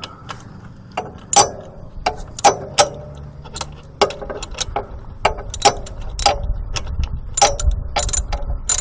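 Ratchet wrench clicking in short irregular runs as a bolt under a GY6 150cc engine is loosened for an oil change.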